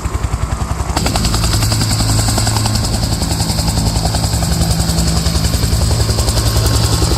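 A firefighting helicopter's rotor beating in fast, even pulses over a steady low engine drone. It gets louder about a second in.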